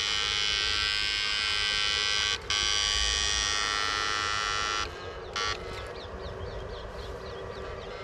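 Battery-powered backpack electrofishing unit buzzing loudly as it sends current into the water through the rod. The buzz drops out for a moment about two and a half seconds in, stops about five seconds in, and comes back for a short burst just after.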